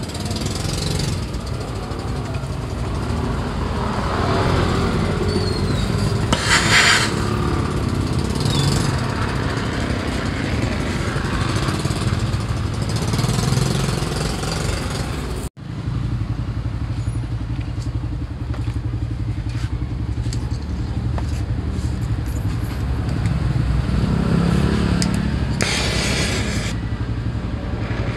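Oxy-acetylene torch burning against the rusted steel scooter frame: a steady hiss with two short, louder hissing blasts, one about a quarter of the way in and one near the end. A low engine-like rumble runs under it throughout.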